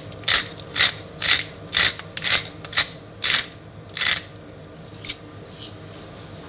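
Salt mill grinding salt, twisted in short crunching strokes about twice a second; the strokes stop about four seconds in, with one last short twist near five seconds.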